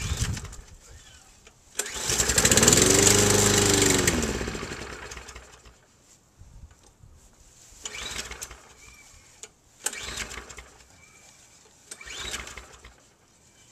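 Small walk-behind lawn mower engine catching about two seconds in and running for a couple of seconds, its pitch rising and then falling as it dies out on the last of the fuel in its drained carburetor. Three short, weaker bursts follow: further starter-cord pulls that don't catch.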